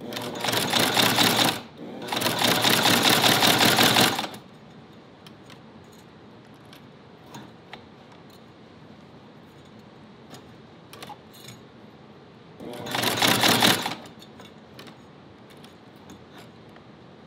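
Motor-driven cobbler's shoe-patcher leather sewing machine (a hand-crank stitcher now belt-driven by a small sewing machine motor) running fast as it stitches through two layers of veg-tan leather. It runs in three bursts: two close together at the start, then a shorter one near the end. Only faint ticks are heard between them as the work is turned.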